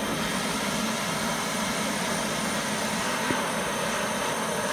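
Handheld gas blowtorch burning steadily, an even continuous hiss, with one small tap a little over three seconds in.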